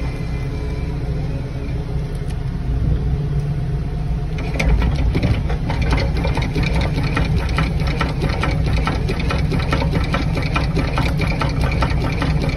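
Excavator's diesel engine running with a hydraulic earth auger attached. About four and a half seconds in, a fast, even mechanical clatter joins the engine and the sound gets louder, as the auger works the hole.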